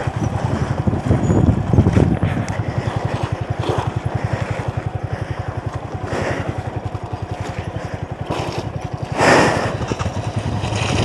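Single-cylinder motorcycle engine running at low revs with an even, fast beat of firing pulses, as the bike works along a muddy off-road trail. A short rush of noise comes about nine seconds in.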